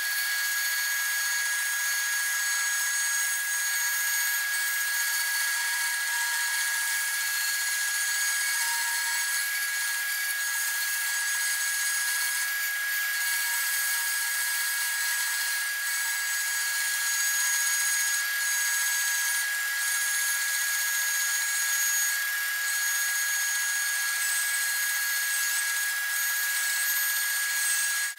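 Baileigh WBS-14 14-inch band saw running and cutting through hard maple boards, a steady whine with the hiss of the blade in the wood.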